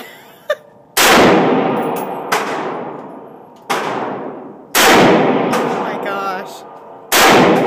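AR-15 rifle in .223 firing five single shots at uneven intervals, each with a long echoing tail; three shots are loud and two in between are weaker.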